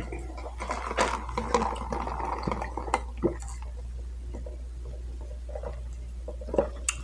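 A large paper fast-food drink cup with a plastic lid is picked up and sipped through a straw. Scattered light knocks and clicks come from the cup and lid being handled, busiest in the first few seconds, with a sharper click near the end.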